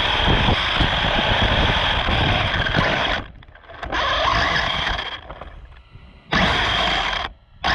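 Radio-controlled car running, its motor and wheels making a loud, dense noise with a faint steady high whine. The sound drops away abruptly about three seconds in and again near the end, and fades off for about a second in between.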